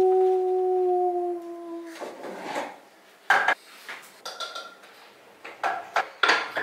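A voice holds one steady note for about two seconds. Then come a series of short clinks and knocks of glass jars and kitchenware being handled on a granite countertop.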